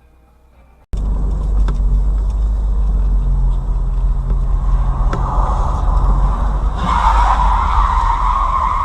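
Car driving, heard through a dash camera: a heavy low road rumble with a steady engine hum, starting abruptly about a second in. A rushing noise swells about six seconds in.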